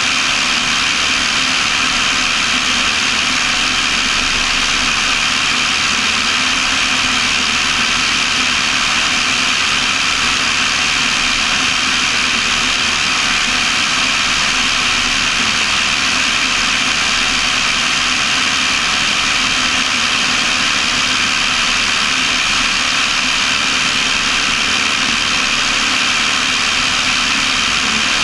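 Cessna 172's piston engine and propeller droning at steady power, heard from inside the cabin.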